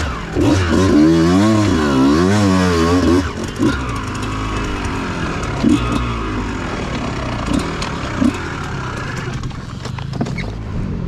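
Kawasaki dirt bike engine under way, its pitch swinging up and down with the throttle for about the first three seconds, then settling to a lower, steadier run. A few short knocks come a little past halfway.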